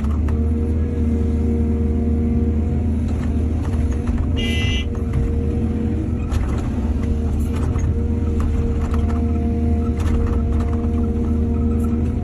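Heavy diesel engine of an excavator running steadily, with a few scattered knocks and a brief high squeal about four and a half seconds in.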